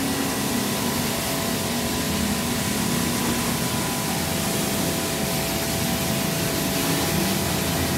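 Portable electric pressure washer running steadily, its motor humming under the hiss of the water jet spraying onto a motorcycle.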